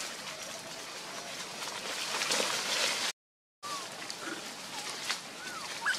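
Macaques scuffling in dry leaf litter with a steady rustling hiss. A brief dropout to silence comes a little past halfway, then several short, thin squeaky calls that rise and fall in pitch.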